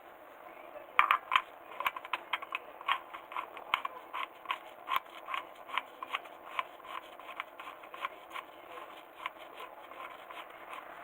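A run of short, sharp clicks, about three to four a second and slightly uneven, starting about a second in and continuing almost to the end.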